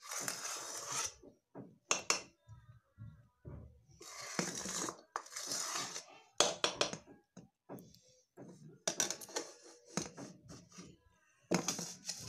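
Metal spatula scraping a kadhai in a series of short scrapes with pauses between, working the last of a thick, sticky jaggery mixture out into a steel plate.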